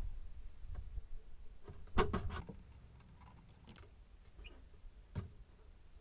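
Faint clicks and scrapes of multimeter probe tips against a light bulb's metal screw base as the bulb is handled, with one sharper click about two seconds in and a smaller one near the end.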